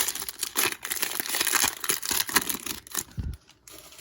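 A trading-card pack wrapper being torn open and crinkled by hand, a dense crackling rustle that dies down about three seconds in.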